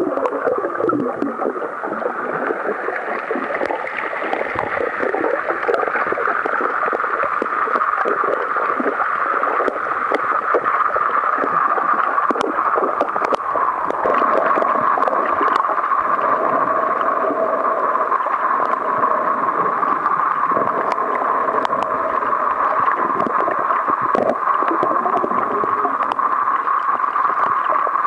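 Muffled underwater ambience picked up by a Sony DSC-TX5 waterproof compact camera held underwater: a steady dull hiss centred on a mid-pitched band, with scattered faint clicks.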